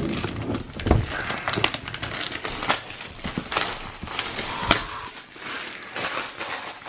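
Clear plastic shrink-wrap being peeled off a MacBook Air box and crumpled, a run of irregular crackling and crinkling, with a dull thump about a second in.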